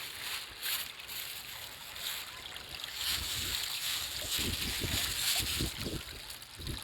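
Flowing river water rushing and splashing, with a few soft low thumps in the second half.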